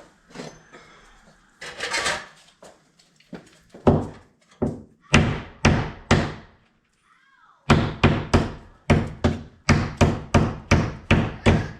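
Repeated heavy thuds of something banging against a house wall, about two to three blows a second, in a short run and then a longer one after a brief pause. The blows are hard enough to be cracking the wall.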